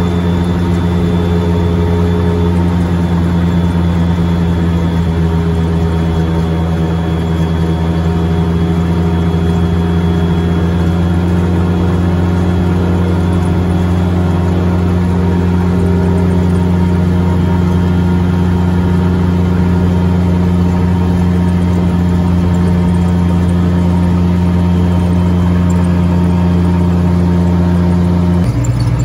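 ATV engine running at a steady cruise along a paved road, a constant low drone that holds the same pitch throughout. The sound changes abruptly just before the end.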